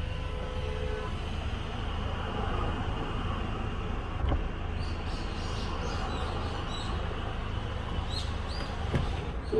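Mercedes-Benz E-Class W212 heard from inside the cabin: a steady low engine and road rumble with no sunroof rattle, and a couple of light knocks about four and nine seconds in.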